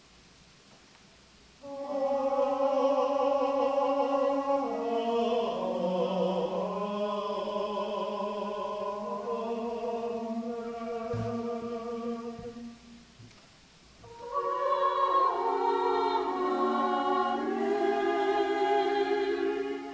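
Choir singing a slow piece in long held notes with several voices in harmony. It comes in two phrases, with a short break about twelve seconds in.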